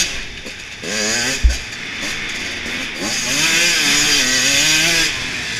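Dirt bike engine revving up and falling back again and again as the rider works the throttle and gears, with wind rush on the microphone. A single heavy thump comes about a second and a half in.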